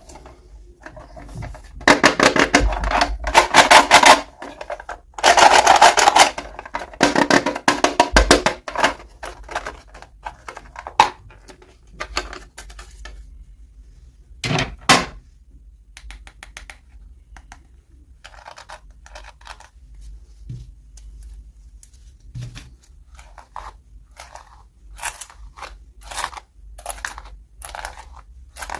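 Toy packaging being opened by hand: two stretches of loud crinkling and tearing of plastic wrapping in the first few seconds, then scattered clicks, taps and light rustles as the pieces are handled.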